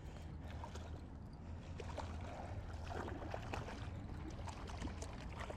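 Creek water running and splashing, with small scattered ticks and a steady low rumble underneath.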